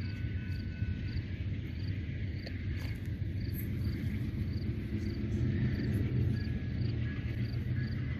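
Crickets chirping steadily, about two short chirps a second, over a constant low rumble.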